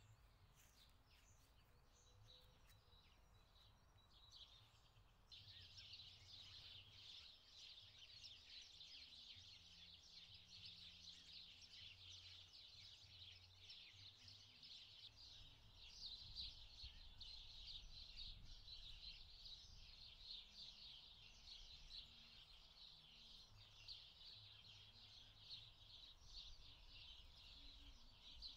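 Faint birdsong in a garden: many small birds chirping and twittering at once, thin at first and becoming a dense, continuous chorus about five seconds in.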